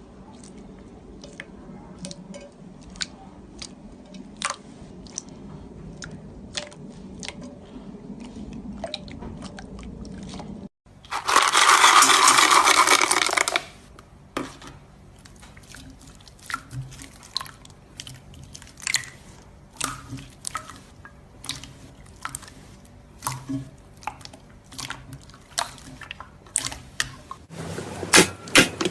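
Slime being squeezed, poked and pressed by hand, making sticky clicks and pops with a quiet squishing underneath. A little after ten seconds in, two seconds of loud dense crunching break in, like crunchy slime being crushed. Near the end comes a run of rapid crackling pops.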